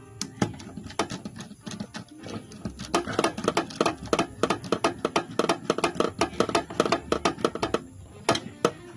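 Screwdriver turning a terminal screw on a miniature circuit breaker: a fast, even run of sharp clicks, about six a second, that stops about eight seconds in, followed by two last clicks.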